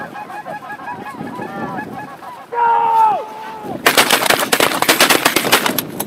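A flock of geese calling and honking, with one loud, long honk that drops in pitch at its end about halfway through. Then, about four seconds in, a volley of shotgun fire from several hunters at once: about two seconds of rapid, overlapping shots.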